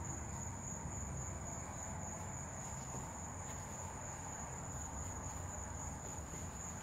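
Crickets trilling steadily in one continuous high-pitched note, over a faint low background rumble.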